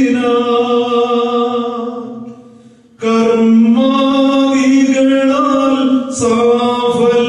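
Solo male voice chanting a Syriac-rite liturgical hymn in long, drawn-out held notes. One note fades away about two seconds in, and the chant picks up again strongly about three seconds in.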